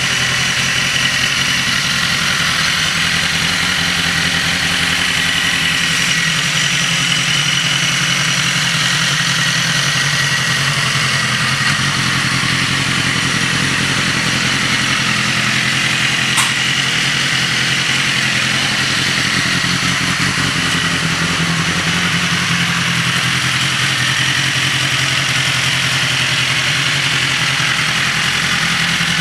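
BMW S1000RR inline-four engine idling steadily. One sharp click about halfway through.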